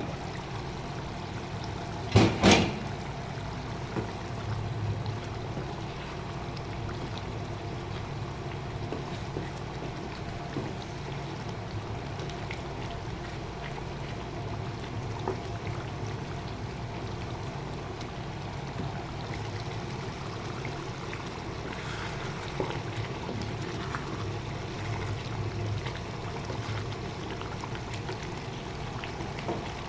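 Steady watery hiss over a low hum, with two sharp knocks close together about two seconds in and a few fainter clicks later.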